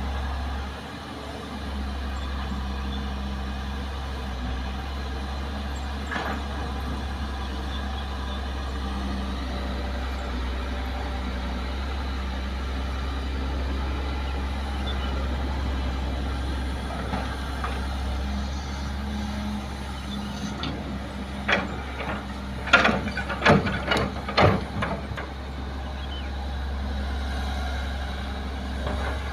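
Kobelco hydraulic excavator's diesel engine running steadily. Between about 21 and 25 seconds in, a burst of sharp knocks and clatter comes as the excavator loads soil and rock into a dump truck.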